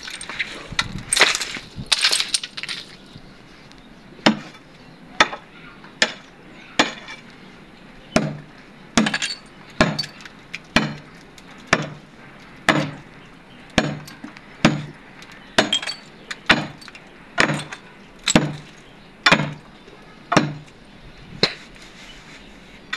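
A long steel bar striking the cement seal of a concrete tomb niche to break it open. There are a few irregular knocks at first, then a steady run of about twenty sharp, ringing blows, a little more than one a second.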